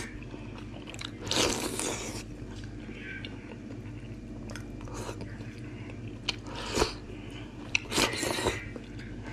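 A person slurping soupy hand-pulled noodle pieces from a bowl, with chewing between. Three loud slurps: a long one about a second in, then two shorter ones close together near the end, with small clicks of chopsticks and mouth sounds between.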